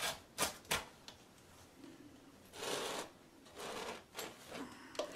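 Rotary pizza cutter rolling through a baked pizza and scraping the wooden cutting board: three quick strokes at the start, a short pause, a longer scrape around the middle, then a few lighter strokes.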